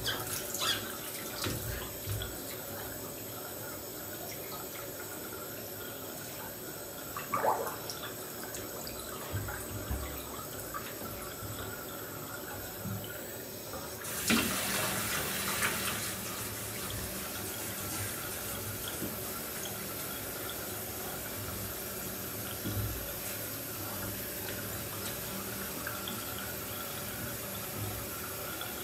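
Water running into a filled bathtub, with sloshing as sneaker-clad feet step and stir in the water; a louder rush of splashing comes about halfway through.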